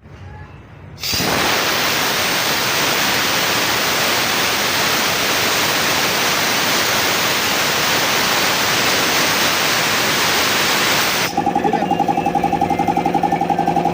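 A loud steady hiss for about ten seconds that stops abruptly, then the Puma air compressor's pump starts and runs with a fast, even mechanical beat.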